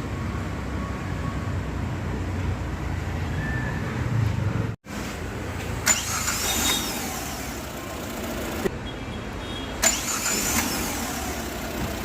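Tata Indigo CS engine running at idle with a steady low rumble, on an engine being worked on for a misfire. The sound breaks off for an instant about five seconds in, and there are short sharp clicks near six and ten seconds.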